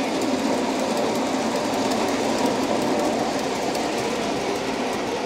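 MTH O-gauge model subway train running on three-rail tubular track, a steady noise of metal wheels on the rails and its electric motors.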